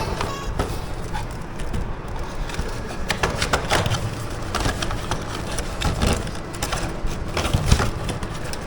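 Irregular crackling and sharp clicks of something being handled.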